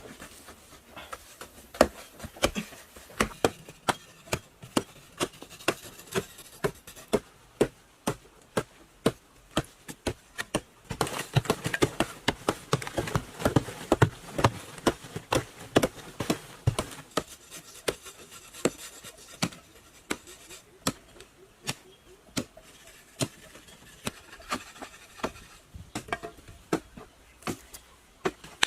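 Irregular sharp knocks and taps, roughly one or two a second, with a stretch of denser rubbing and scraping in the middle, like hands working with hard material.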